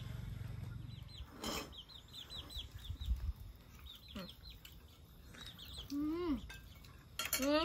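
Chickens clucking, with quick high peeps repeating throughout and a few lower calls, one loud near the end.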